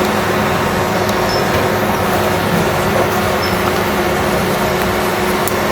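Steady, unchanging background hum with a hiss, as from a running machine such as a fan or air conditioner.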